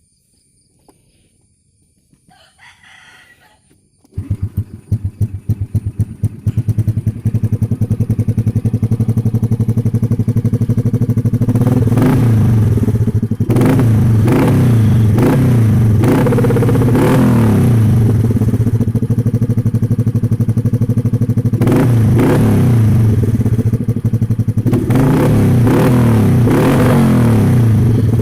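Demak Evoz 110R's small single-cylinder engine, breathing through an Epower Black Cobra aftermarket exhaust, starts about four seconds in. It settles into a steady idle and is blipped to higher revs several times.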